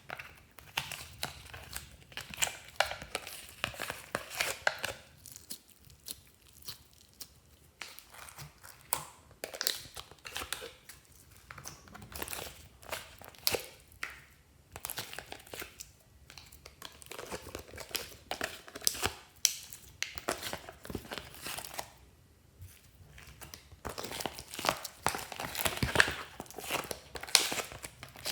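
Hands kneading, pressing and stretching glossy slime, making runs of sticky crackling and popping clicks that come in spells with short pauses between them.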